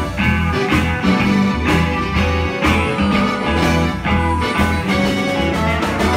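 Live blues band playing loudly, led by guitar over a bass line with a steady beat about once a second.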